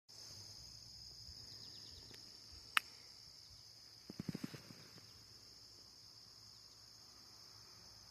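A single sharp click, then about a second and a half later a quick rattling run of around six knocks, over a steady faint high-pitched whine.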